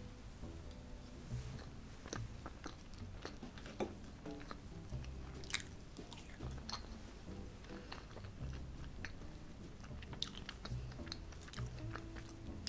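Fork clinking and scraping on a plate as bites of strawberry cream sponge cake are taken, with close-up chewing, and many irregular sharp clicks throughout. Soft music plays faintly underneath.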